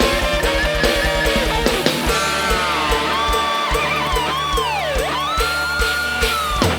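Live band playing an instrumental break. A rapid, even kick-drum beat runs first, then about two seconds in a lead instrument plays long sliding, bending notes over a slower beat.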